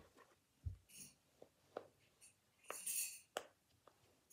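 Faint, scattered soft clicks of a silicone triangle pop-it fidget's bubbles being pressed, about five of them, the sharpest a little over three seconds in, with light rustling of fingers on the toy.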